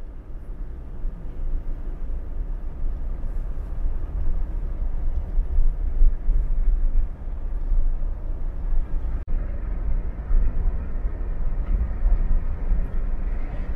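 Steady low rumble of a vehicle being driven: road and engine noise, with a brief break about nine seconds in.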